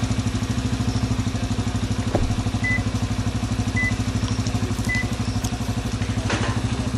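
A small engine idling steadily with a fast, even throb. Three short high beeps sound about a second apart near the middle.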